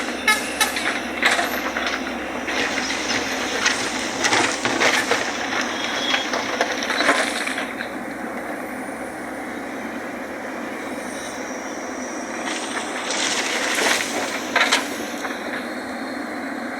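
JCB loader working on road construction: steady machine noise with repeated metallic clanks and rattles, busiest in the first half and again a few seconds before the end.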